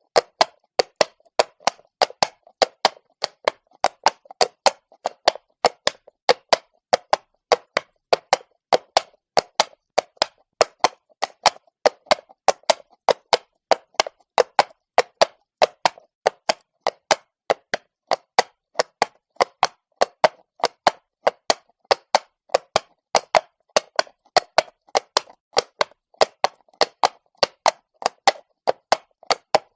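Horse's hooves striking stone at a walk, a steady run of sharp clip-clop knocks at about three a second.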